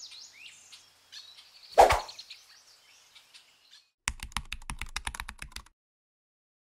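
Birds chirping, with one heavy thump about two seconds in, the loudest sound. Then comes a fast run of sharp mechanical clicks, about ten a second, lasting about a second and a half.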